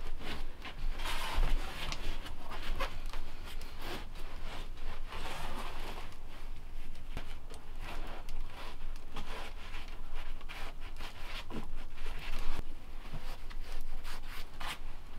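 Mineral wool insulation batts being pushed and fitted between wooden wall studs: irregular rustling, rubbing and scraping.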